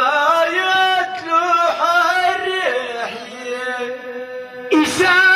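A man chanting Tashelhit sung poetry (tanḍḍamt) solo into a microphone, in long held notes that waver slightly, with a fresh, louder phrase starting near the end.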